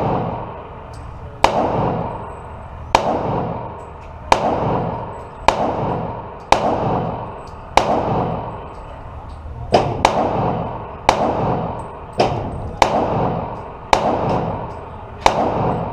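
Gunshots, about a dozen at irregular intervals of roughly one to one and a half seconds. Each is a sharp crack followed by a long echoing tail.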